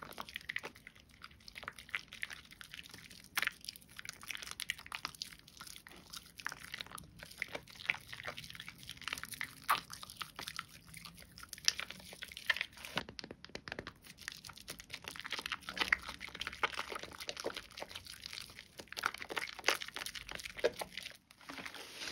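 Soaked, mushy bar soap being lathered into thick foam: a dense, irregular run of soft wet clicks, squelches and crackles.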